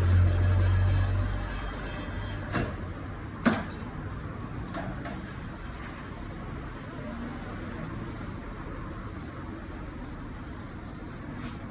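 A low engine-like hum that dies away about a second in, then a few scattered sharp knocks of tools or parts during tyre-change work, the loudest about three and a half seconds in.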